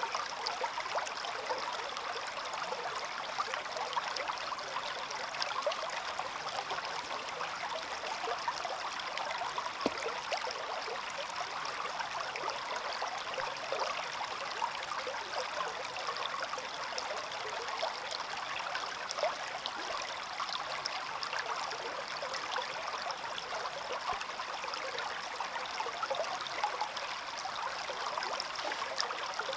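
Small stream babbling and trickling over stones, a steady rush flecked with many small splashes.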